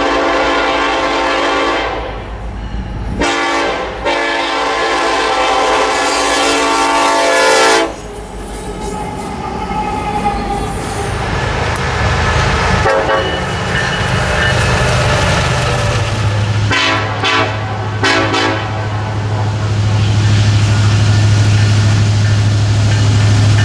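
A freight diesel locomotive's Nathan K5LLA five-chime air horn blowing a blast that ends about two seconds in, then a longer blast of about four and a half seconds. The train then rolls past with wheel and engine noise and a steady low hum, and the horn gives two short toots near the middle.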